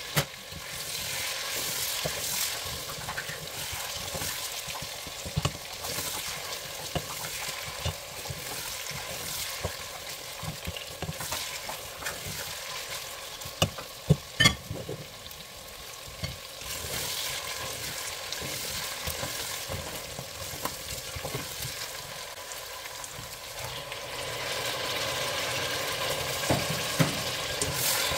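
Chunks of mutton sizzling in oil in a stainless steel pressure-cooker pot, stirred and scraped with a plastic spatula. A few sharp knocks come about halfway through, and the sizzle grows louder near the end.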